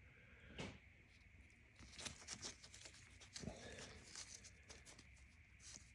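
Faint scattered clicks and light handling noises from hand work on engine parts, close to room tone.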